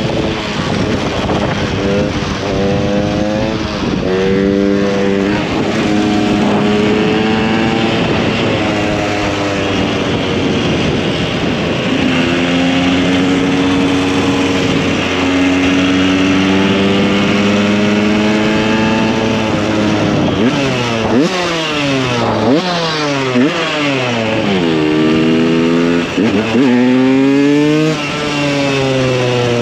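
2015 KTM 125 EXC supermoto's two-stroke single-cylinder engine running under way, its pitch fairly steady for about the first twenty seconds. Then the revs rise and fall sharply several times in quick succession.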